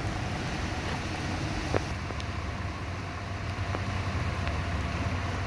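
Car driving on a rain-soaked road: a steady low hum of engine and tyres, with a few light clicks.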